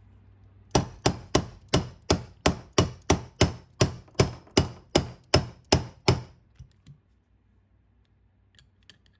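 Hammer striking a socket in a quick, even series of about fifteen blows, roughly three a second, driving a diff locker down into an RC car's differential case to seat it flush. A couple of light taps follow near the end.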